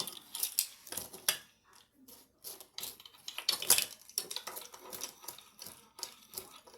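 Spoon stirring cinnamon sugar in a bowl, with irregular clinks and scrapes against the bowl, the loudest about three and a half seconds in.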